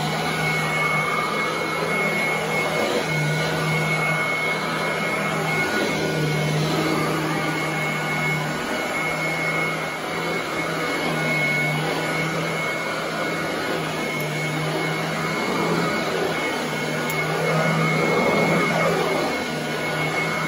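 Royal commercial upright vacuum cleaner running as it is pushed back and forth over carpet: a continuous motor hum with a steady high whine.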